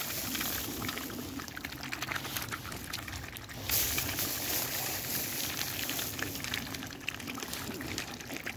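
Mute swans dabbling and feeding at the water's edge, their bills working the shallow water in a busy run of small splashes and wet clicks, with a brief louder rush a little past the middle.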